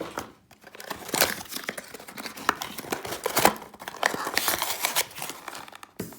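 Firework packaging being handled and unwrapped by hand: crinkling, rustling and tearing of wrapping and cardboard, with scattered clicks and taps.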